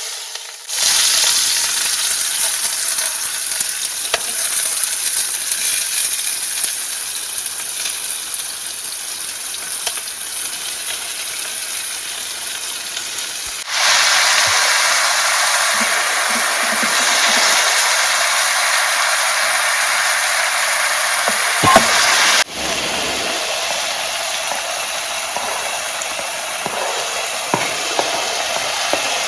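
Onion and capsicum masala sizzling steadily as it fries in hot oil in a pan, with an occasional light knock. The sizzle gets louder about halfway through and drops back a little about three-quarters of the way in.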